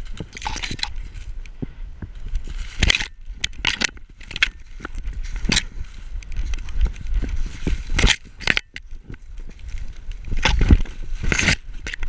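Dry corn stalks and leaves crackling and scraping as a dog pushes through them, with crunching paw steps in snow. Wind rumbles on the microphone underneath, and the loudest cluster of crackles comes near the end.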